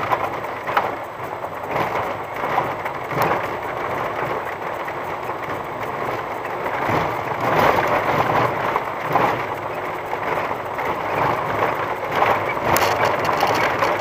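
A VW T5 California van rolling slowly over a rough gravel dirt track: tyres crunching over loose stones, with frequent knocks and rattles as it jolts over the bumps.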